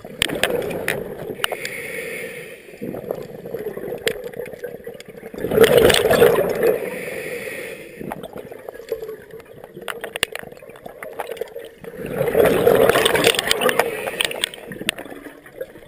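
Scuba diver breathing through a regulator underwater: two loud rushes of exhaled bubbles, about six seconds apart, with quieter bubbling and hiss between them.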